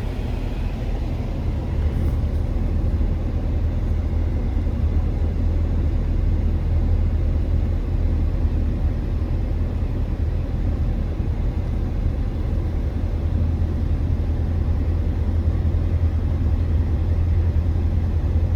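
Steady low rumble of a truck driving at highway speed, the engine and tyre noise heard from inside the cab.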